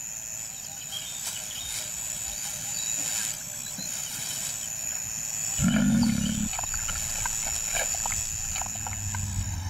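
A lion's short, low growl, lasting about a second, a little past halfway through.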